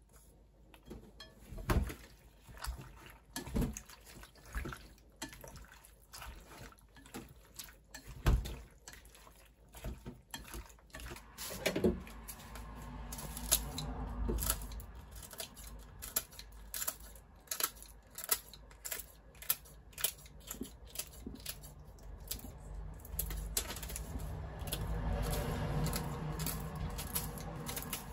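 Kitchen scissors snipping dried red chili peppers into a glass bowl, a long run of sharp, irregular clicks. A low steady hum sits underneath from about halfway through.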